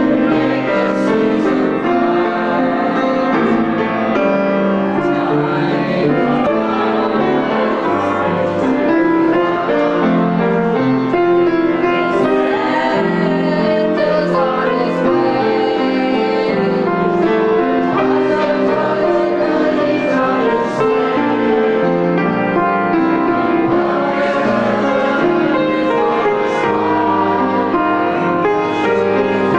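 Steinway pianos playing a Christmas carol, continuous chords and melody.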